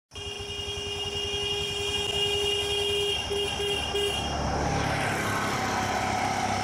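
A motor vehicle running, with a steady horn-like tone held for about three seconds that then breaks into three short toots. After that comes a louder, rougher rush of engine and road noise.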